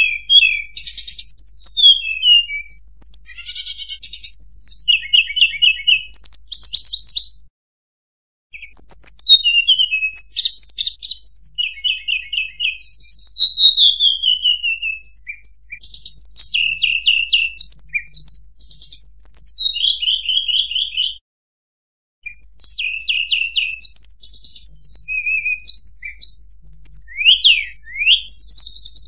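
Tledekan gunung, a blue flycatcher, singing in a recorded lure track: rapid, high, varied whistled phrases and trills, broken twice by about a second of silence.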